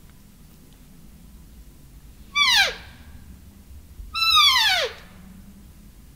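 Hand-held cow elk call blown twice: two mews, each a high note sliding steeply down in pitch, about two and a half seconds in and again about four seconds in, the second one longer. The mews imitate a cow elk to draw a bull in.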